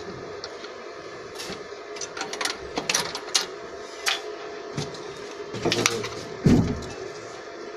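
Steel wrench clinking and tapping against the injector fuel-line fittings of a diesel V8 engine, in irregular sharp metal clicks, with a heavier clunk about six and a half seconds in.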